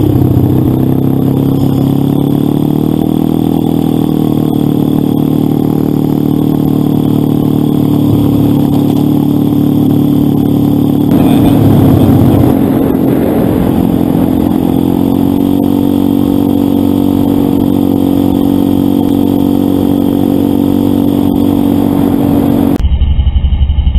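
Motorcycle engine running at a steady road speed, its note dipping and rising slightly a couple of times, with a brief louder rushing noise about eleven seconds in. Near the end the sound cuts abruptly to a different, muffled low sound.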